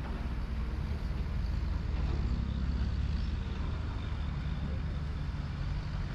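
Deep, steady rumbling from Mount Merapi, an active stratovolcano, heard as a continuous low drone without separate blasts.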